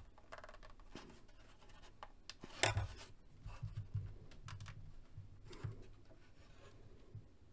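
Faint scraping and clicking of hard plastic as the parts of a Hasbro Mission Fleet Razor Crest toy ship are handled and a small toy rifle is worked into its moulded weapon locker, with one louder click about two and a half seconds in.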